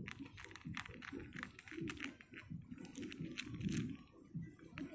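A domestic cat chewing dry kibble, with crisp, irregular crunches several times a second, over a low background murmur.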